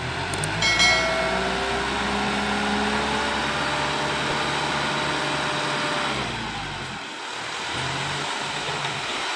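Dump truck's diesel engine running steadily, dropping off a little about two-thirds of the way through.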